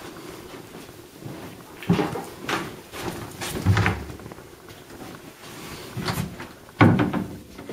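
Wooden cupboard doors with metal bar handles being handled and opened: a series of knocks and clunks, the loudest near the end.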